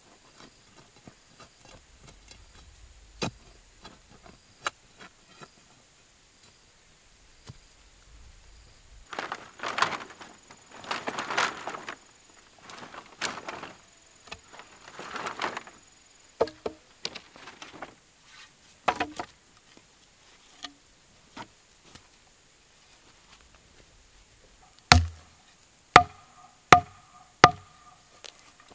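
Bamboo poles clattering and rustling as they are handled. Near the end comes a run of sharp, loud wooden thuds about one a second: a wooden tamper pounding the soil around the base of a bamboo stake.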